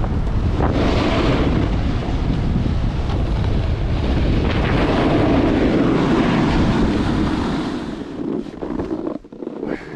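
Wind buffeting the microphone over a snowboard sliding and carving on snow, a loud steady rush. The rush thins and drops about eight seconds in.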